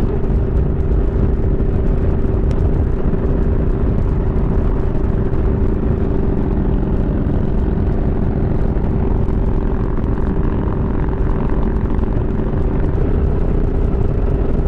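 Motorcycle cruising steadily at road speed: a constant engine drone with a steady hum, and wind rushing over the rider's microphone.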